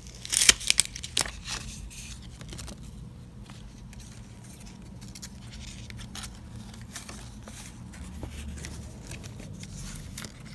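Hands handling a homemade cardboard-and-paper fire alarm pull station during its reset: a quick run of sharp paper crinkles and clicks in the first second or so, then faint scattered taps and rustling.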